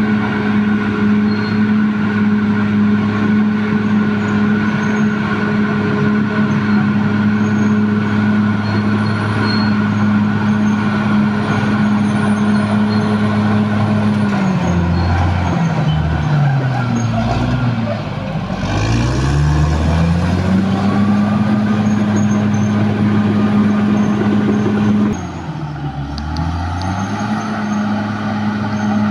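Diesel engine of a CAT D6R XL bulldozer running at steady high revs. Its pitch drops steeply and climbs back twice, about halfway through and near the end.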